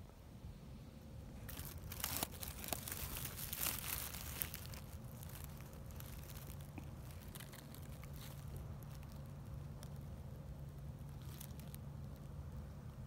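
Dry, dead grass crackling and rustling close to the microphone for a few seconds, with a brief fainter rustle near the end. A steady low hum runs underneath.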